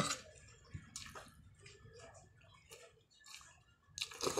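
Quiet eating sounds: a spoon and fork clicking against a plate, with small mouth sounds of eating, and a louder clatter of utensils near the end.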